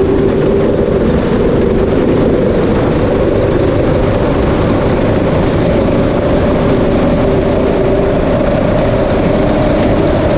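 Predator 212 single-cylinder engine on a go-kart running at full throttle. Its pitch climbs slowly as the kart accelerates and is still pulling, under heavy wind noise.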